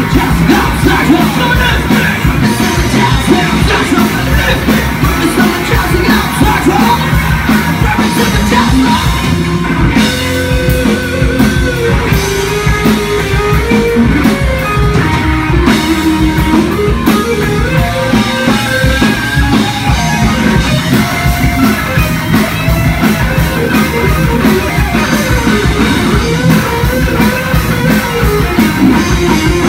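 Rock band playing live and loud: distorted electric guitars through amplifiers over a driving beat. A sustained melodic lead line rises and falls above the band through the middle and again near the end.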